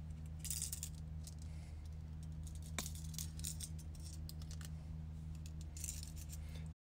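Small metallic clicks, scrapes and clinks of split ring pliers prying open a stiff stainless steel No. 6 split ring and working it onto a fishing lure's hook hanger, over a steady low hum. The sound cuts off suddenly near the end.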